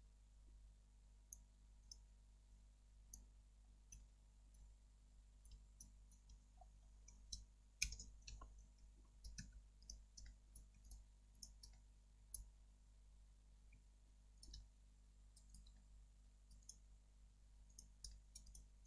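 Faint, irregular clicking of a computer mouse, with one louder click about eight seconds in.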